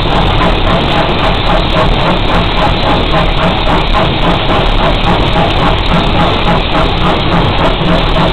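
GWR 5700 class pannier tank steam locomotive heard from its footplate while working up a 1 in 37 gradient: the exhaust beats evenly over a constant loud rumble in the cab.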